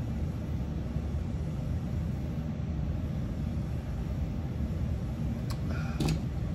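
A man taking long swallows of beer from a glass mug over a steady low rumble of room noise. Near the end there is a short click, then a knock as the glass is set down.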